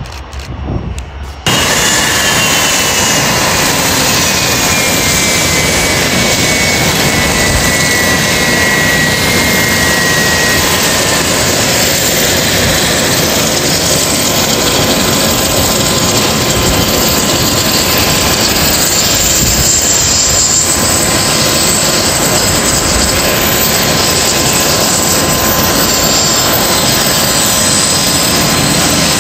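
Business jet's turbofan engines running close by, a loud steady roar with a high whine that glides down in pitch over the first several seconds. The roar cuts in suddenly about a second and a half in, after a quieter stretch.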